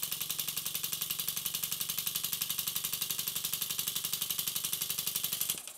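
Stuart Models S50 horizontal mill steam engine running on compressed air, its exhaust puffing in a rapid, even beat. It is an older engine, well run in, that runs freely and better than a newly built one. The beat stops suddenly near the end.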